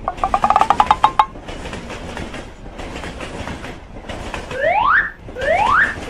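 Cartoon sound effects: a quick rattle of ringing clicks lasting about a second, then a few seconds of steady train-running rumble. Near the end a rising swooping alarm-like tone starts repeating, roughly one swoop every 0.7 seconds.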